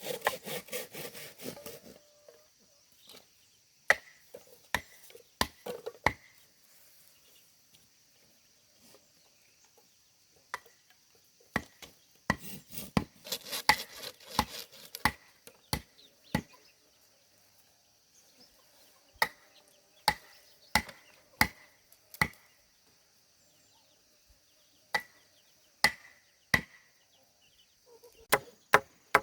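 Sharp knocks of a tool striking bamboo, in bursts of several strokes with pauses between, over a steady high buzz of insects. A rasping, sawing-like scrape fills the first two seconds.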